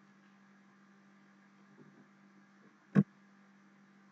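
Steady low electrical hum under a faint hiss, with one sharp click about three seconds in.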